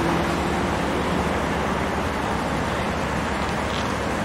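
City street traffic: a van and a car drive past with an engine hum that rises slightly in pitch and fades out about two seconds in, leaving a steady wash of traffic noise.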